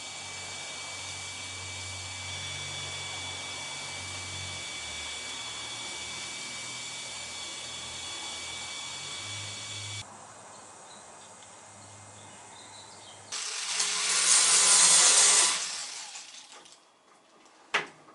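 A power tool running steadily with a high whine, cut off sharply about ten seconds in. A few seconds later comes a loud rushing hiss lasting about two seconds, then a few sharp knocks near the end.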